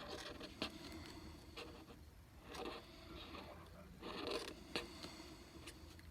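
Pen scratching on paper in quick strokes, short scrapes coming about once a second.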